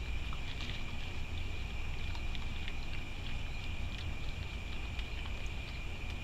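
Raccoon feeding from a dish of seed: irregular small clicks and crunches of chewing and of the dish being nosed. These come over a steady high-pitched whine and a low rumble.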